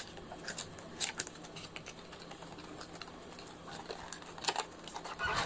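Cardboard packaging being handled: light, scattered clicks and short scrapes as a boxed microphone is slid out of its blue outer cardboard sleeve.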